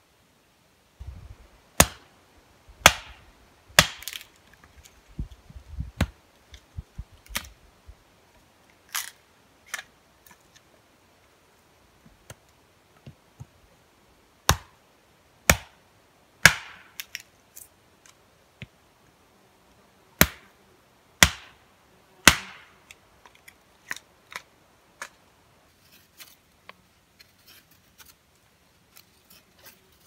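Hatchet splitting firewood: sharp cracks of the blade striking wood, several in runs of three about a second apart, with lighter knocks and ticks between the strikes and near the end.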